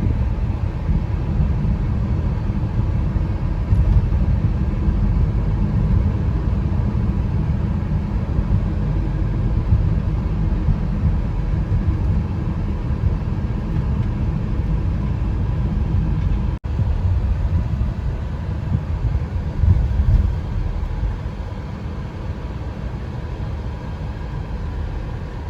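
A car driving on the road: a steady low rumble of road and engine noise, broken once by a brief drop-out about two-thirds of the way through.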